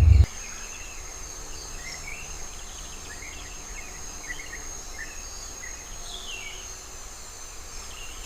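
Forest ambience: a steady high-pitched insect trill, with short bird chirps scattered through it. A loud low rumble cuts off abruptly right at the start.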